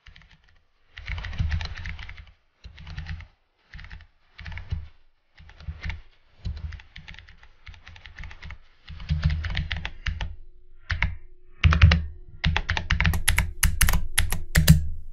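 Typing on a computer keyboard: runs of rapid keystrokes in bursts of a second or two, with short pauses between them.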